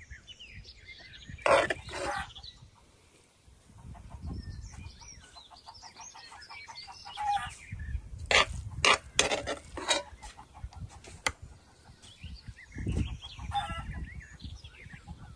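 Chickens clucking, with small birds chirping, and a few sharp knocks about a second and a half in and again around eight to ten seconds in.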